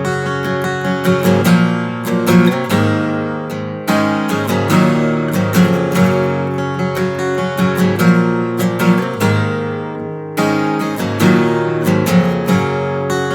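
Martin D-28 dreadnought steel-string acoustic guitar being strummed and picked in chords, strung with D'Addario EXP 13-gauge strings tuned down a half step to E flat. Twice a chord is left to ring and fade before the playing resumes. The sound is heard through a phone's built-in microphone.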